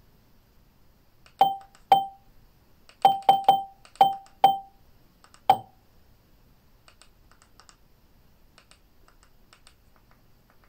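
Google TV menu navigation sounds: eight short blips at one pitch, each dying away quickly, at uneven intervals as the menu selection is moved, followed by faint clicking from about the middle on.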